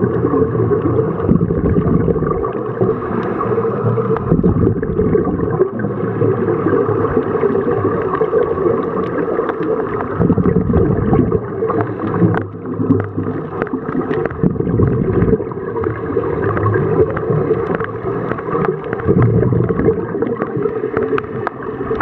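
Muffled underwater noise: a steady low rumble with gurgling bubbles from scuba divers' breathing regulators, and scattered small clicks.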